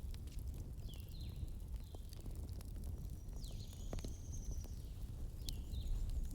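Bonfire burning with a low steady rumble and scattered sharp crackles and pops, a stronger pop about four seconds in. Birds chirp over it, with short repeated chirps and one longer call near the middle.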